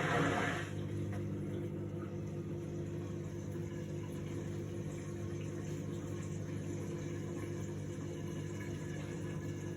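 Indesit front-loading washing machine on its quick wash programme: a loud rush, most likely water, cuts off about half a second in, leaving a steady low hum from the machine.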